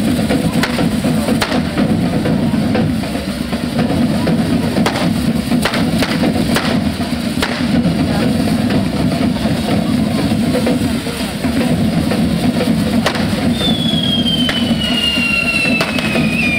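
Drum group of a Catalan devils' troupe playing a steady, loud rhythm on bass and snare-type drums. Near the end a high whistle comes in and slowly falls in pitch over the drumming.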